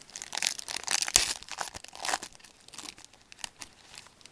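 Wrapper of a hockey trading card pack crinkling and tearing as it is opened by hand. The crackling is busiest in the first two seconds, with a sharp crackle about a second in, then thins out.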